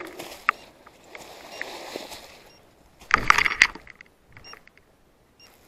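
Dry brush and branches rustling and snapping, with a short burst of loud crackling about three seconds in.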